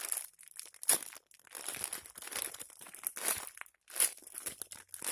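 A foam squishy toy being squeezed and handled in the hands close to the microphone, an irregular rustling with sharper crackles about a second in and about four seconds in.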